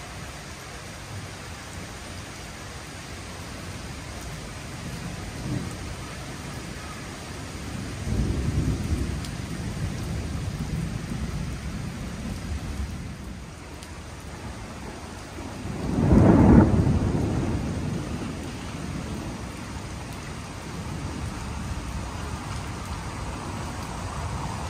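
Steady rain falling on wet paving, with thunder rumbling twice: a low rumble about eight seconds in, then a louder peal around sixteen seconds in that dies away over a few seconds.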